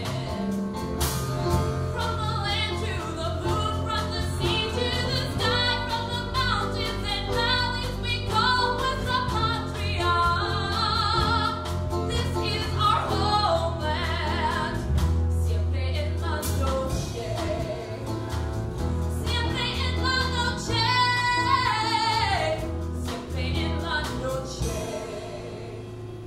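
A song sung with instrumental accompaniment, the melody moving freely over sustained low notes; the music dies away near the end.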